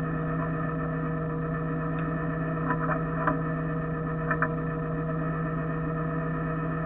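Ford F-450 Super Duty tow truck's engine idling steadily, with a few light metallic clinks from the rigging about two to four seconds in.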